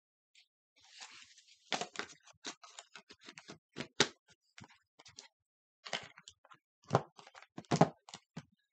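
Packaging being handled while a charging cable and power adapter are unpacked: a run of rustles and sharp clicks, with a few louder knocks about halfway through and near the end.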